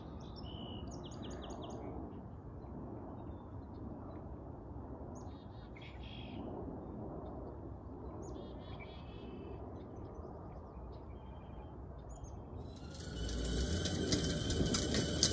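Short, scattered bird chirps over a steady low outdoor rumble. About thirteen seconds in, a louder steady clatter and whir begins: a child's ride-on toy tractor rolling on pavement.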